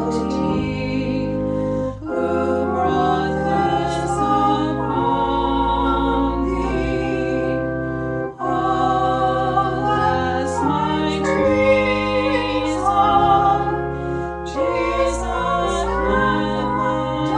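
A choir singing with organ accompaniment, in held chords that change every second or two.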